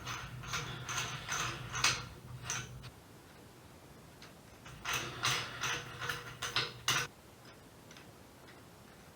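Ratchet wrench clicking in short strokes, about two a second, turning the bolt of a harmonic balancer installer tool; one run of strokes at the start, a pause, then a second run about five seconds in.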